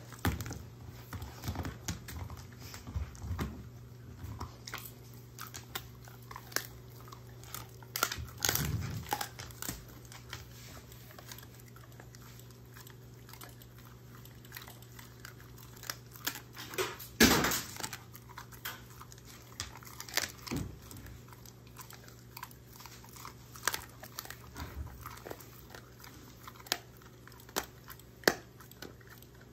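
German shorthaired pointer chewing and crunching dog treats, with scattered sharp crunches and clicks and one louder knock a bit past halfway, over a faint steady low hum.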